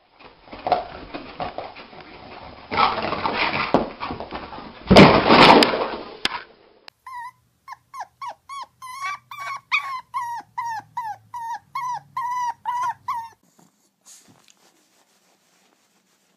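A small puppy giving a long run of short, high yips, about three a second, after a stretch of loud rustling noise that is loudest around five seconds in.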